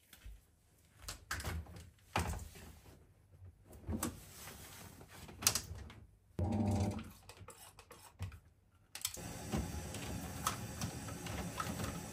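Top-loading washing machine being started: scattered clicks and knocks as its lid and control panel are worked, a brief motor hum about six seconds in, then a steady rush of water filling the drum from about nine seconds on.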